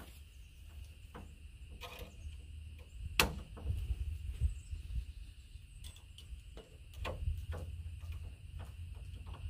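Scattered clicks and light knocks of hands working wire and metal at a chain-link fence post, with one sharp click about three seconds in. A steady high insect drone runs underneath.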